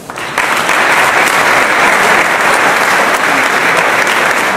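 Audience applauding, a dense clapping that swells up about half a second in and stays loud.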